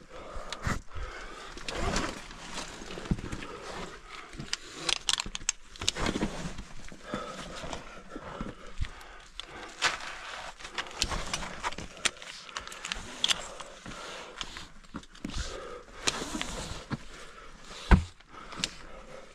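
Caving gear clinking and scraping against rock as a caver climbs on a rope: irregular metallic clicks, knocks and rustling, with one sharp knock near the end.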